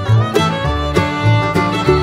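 Background music: an upbeat fiddle-led string tune with a steady beat.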